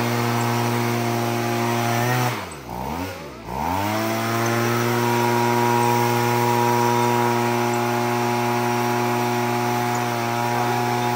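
A motor running with a steady pitched hum. Its pitch drops sharply twice, about two and a half to three and a half seconds in, then climbs back and holds steady.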